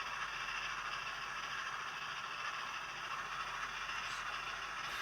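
Hornby A4 model steam locomotive running flat out on a rolling road: a steady whirring rattle of its motor and wheels spinning on the rollers, mixed with the sound of its TTS sound decoder.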